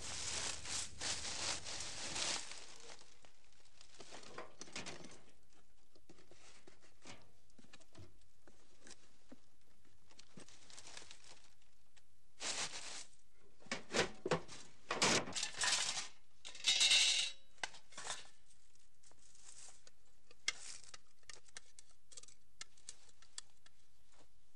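Scrap junk being rummaged through and shifted: bursts of rustling and clattering debris in the first couple of seconds and again in a busier run in the middle, with quiet stretches between.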